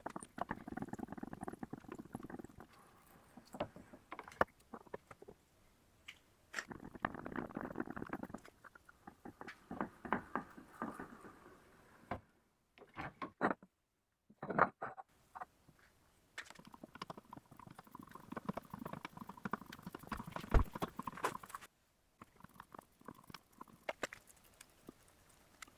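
Holes in a metal part being tapped by hand with the tap held in a manual drilling machine: irregular scraping and creaking of the tap cutting threads, with scattered clicks. The sound stops dead several times, mostly around the middle.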